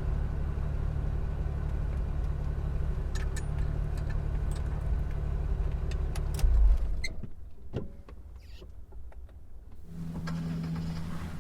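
Car engine running with a steady low hum, then a heavy low thump about six and a half seconds in, after which the sound drops away to a much quieter level with a few faint clicks. A quieter steady hum starts again near the end.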